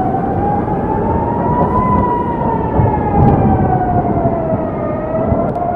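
Emergency alert siren wailing: one slow tone rises for about two seconds, falls for about three, then starts rising again near the end, over a loud, steady rushing noise.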